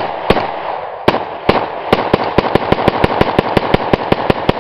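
Rapid semi-automatic fire from an Arsenal SLR-104FR rifle in 5.45x39, about eighteen shots with echo ringing between them. The first few come a half second or so apart, then about two seconds in the fire speeds up to a steady string of about six shots a second.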